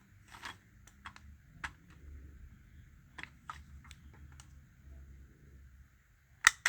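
Irregular clicks and taps from smoke alarms being handled and fitted together, with two sharper knocks near the end.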